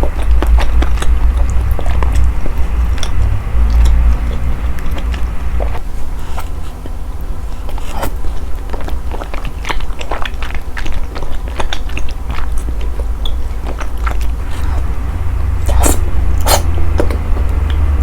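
Close-miked mukbang eating sounds: chewing and biting into cream curry glass noodles and sausages, with many sharp wet clicks and snaps scattered through, the strongest about eight seconds in and near the end, over a steady low rumble.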